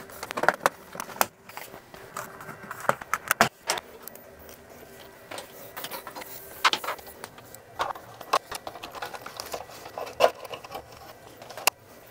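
Irregular light clicks, taps and rattles of a thin direct-attach copper network cable being pushed into slotted plastic cable raceway on the wall and handled by hand, over a faint steady hum.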